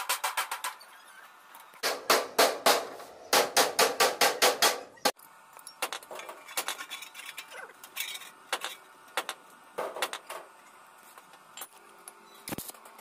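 Fast runs of hammer taps on steel, about eight strikes a second, in three bursts over the first five seconds, followed by a few scattered lighter clicks; a steady hum starts near the end.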